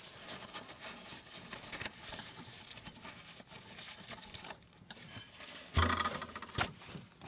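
Crinkling and rustling of blue paper shop towels being pushed into open exhaust manifold ports by a gloved hand, with many small clicks, and a dull thump about six seconds in.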